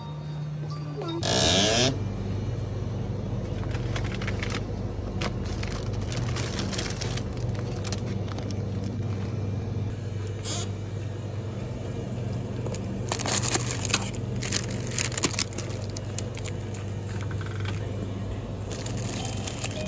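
Steady low hum of a shop's refrigerated display cases. A short loud burst of noise comes about a second and a half in, and scattered clicks and rattles come around the middle and near the end.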